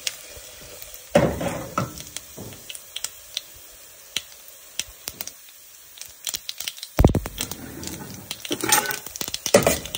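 Mustard seeds and dal popping and crackling in hot oil in a steel pot during a tempering, with scattered sharp pops throughout. A few heavier knocks stand out, with a dull thump about seven seconds in.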